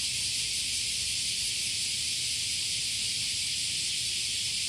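A chorus of cicadas singing: a steady, unbroken high hiss.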